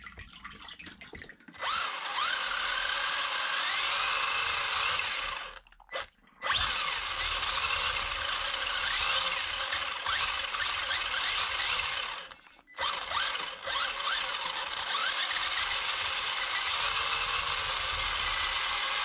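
WLtoys A959 RC buggy's electric motor and drivetrain whirring under throttle in three long runs with short breaks between, the pitch gliding up and down as the throttle changes.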